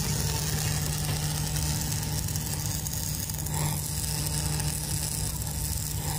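Stick (arc) welding: the electrode burns in a steady crackling sizzle over a constant low hum.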